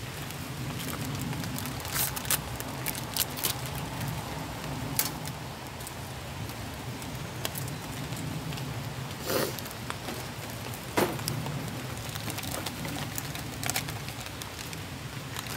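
Wood fire burning in a small box stove under a pot: a steady hiss dotted with short sharp crackles, and a couple of louder knocks about nine and eleven seconds in.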